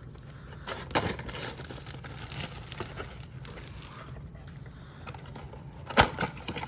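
Retail hockey card packaging being torn open and handled: a steady crinkling and tearing of wrapper and cardboard, with sharp snaps about a second in and again near the end.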